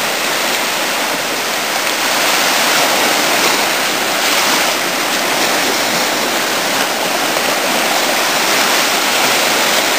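Small sea surf breaking and washing up the sandy shore in a steady rush of water noise.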